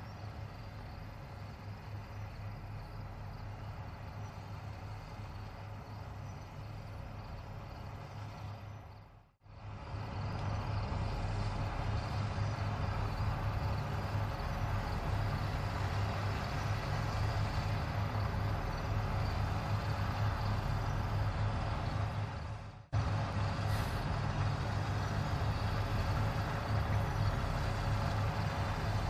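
Fendt 9T combine harvester running steadily while harvesting, a continuous engine drone with a strong low hum. The sound cuts out abruptly twice, about nine seconds in and again about twenty-three seconds in, and is louder after the first break.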